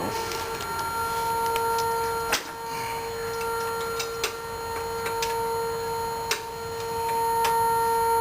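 Outdoor warning siren holding a steady wail at full pitch, with a few sharp clicks over it.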